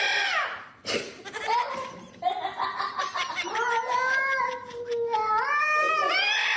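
A cat yowling in long drawn-out wails: one call trails off at the start, then a second long yowl wavers and climbs in pitch near the end.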